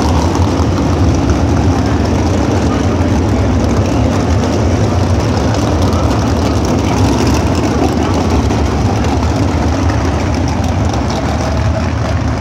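A field of USAC Silver Crown open-wheel race cars running together around a dirt oval: a loud, steady, continuous blend of many engines.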